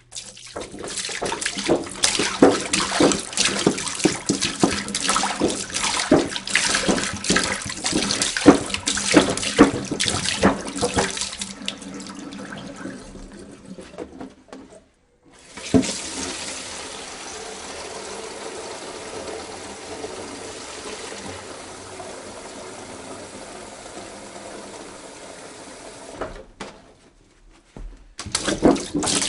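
Water poured from a jug. First comes a splashing, gurgling stream for about twelve seconds that thins out and stops. After a short break a second, smoother and steadier pour runs for about ten seconds, and another splashy pour starts near the end.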